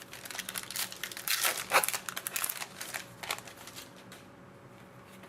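Crinkling and rustling of a hockey card pack's wrapper being handled and torn open, strongest about a second and a half in and fading out after about three and a half seconds.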